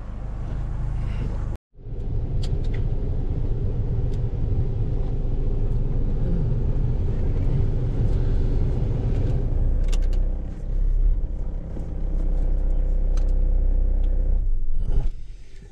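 Car driving, heard from inside the cabin: a steady engine and road rumble, broken by a moment of total silence about a second and a half in. The rumble eases near the end.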